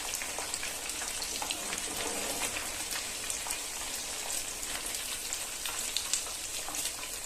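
Chicken pieces deep-frying in hot coconut oil: a steady sizzling hiss with many small crackles and pops.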